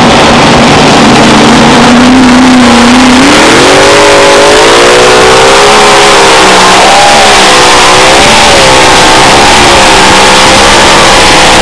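A mini rod pulling tractor's engine runs at full throttle as it pulls the sled. Its pitch climbs sharply about three seconds in, then wavers up and down as the tractor bounces down the track.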